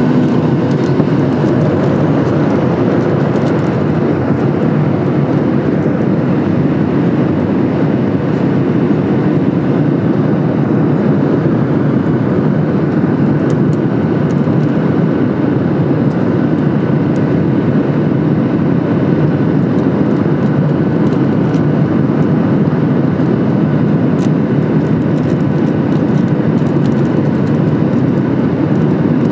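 Steady in-flight cabin noise of a Boeing 737 MAX 8: a constant deep rush of airflow and its CFM LEAP-1B engines, with faint steady whine tones over it.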